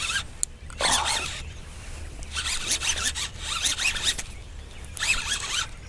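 Baitcasting reel being worked while a hooked fish is fought: several short rasping bursts, about a second in, in the middle and near the end.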